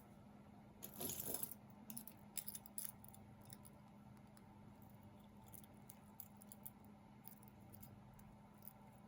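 Faint clinking and rattling of costume jewelry being handled and sorted: a short rustle about a second in, a few light metallic clicks soon after, then scattered faint ticks.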